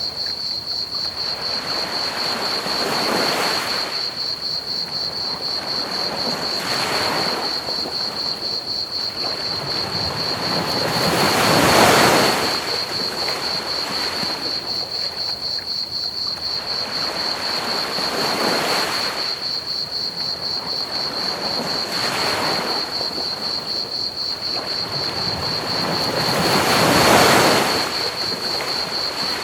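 Ocean waves washing onto a beach in slow swells every four or five seconds, the two biggest about twelve seconds in and near the end. Under them run a steady, rapid high cricket trill and a constant hiss of pink noise.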